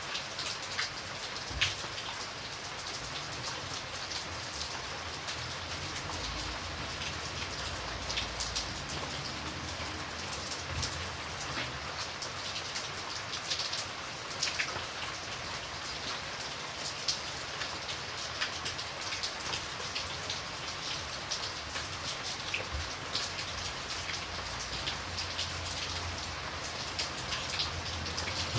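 Steady rain falling, a continuous hiss with the close, distinct patter of individual raindrops striking a surface.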